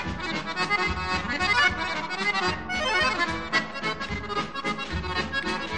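Instrumental music with a steady rhythm.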